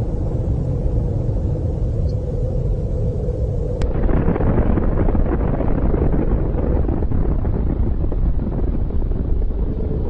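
Deep, continuous rumble of a nuclear explosion, growing rougher and louder about four seconds in.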